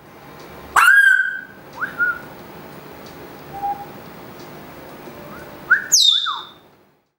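African grey parrot whistling: a loud call about a second in, a few short whistles after it, and a sharp falling whistle near the end.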